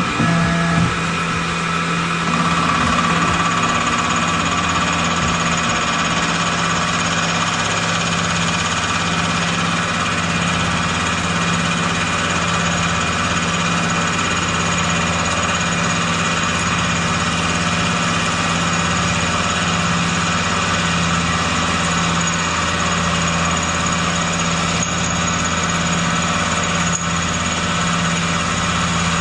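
Tormach CNC mill spindle driving a carbide-tipped fly cutter through a 6061 aluminum plate: a steady machining noise made of several held tones over a low, evenly pulsing hum.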